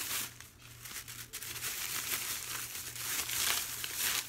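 Plastic crinkling and rustling, on and off, as shopping bags and packaging are rummaged through by hand.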